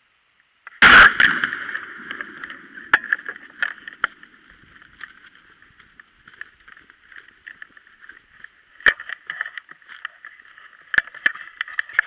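A single shotgun blast about a second in, the loudest sound by far, fading over about a second. After it come scattered clicks, knocks and rustling.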